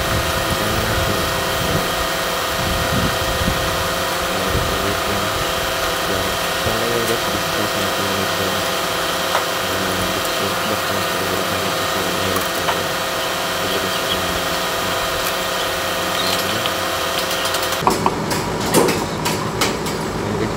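A steady mechanical hum holding several fixed tones, from a machine running nearby. It cuts off about eighteen seconds in, and sharp metallic clicks and knocks of hand tools on the truck's air compressor follow.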